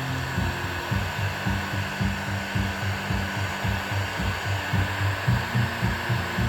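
Bauer electric heat gun running steadily, its fan blowing hot air to shrink heat-shrink tubing over a crimped butt connector. A steady airy rush with a low hum that pulses a few times a second.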